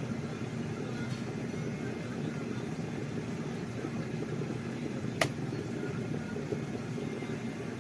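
Steady low rumbling noise with one sharp click about five seconds in.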